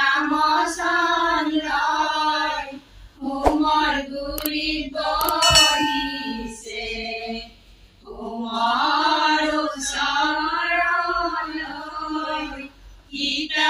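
Women singing an Assamese biya naam (traditional wedding song), with no instruments, in long phrases broken by short pauses about three and eight seconds in. Around the middle, a few clicks and a bright ding sound over the singing.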